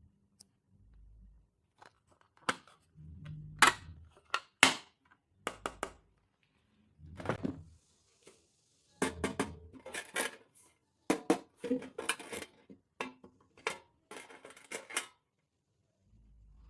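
Stationery and its packaging being handled: sharp plastic clicks and taps with some crinkling and rustling, in short bursts separated by silent gaps.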